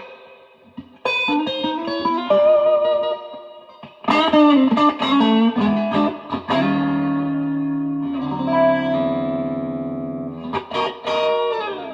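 Electric guitar played through a Fender Blues Junior tube amp: picked phrases and chords, then long held notes that ring and waver, and a last strummed phrase near the end. A full, overtone-rich tone the player calls juicy.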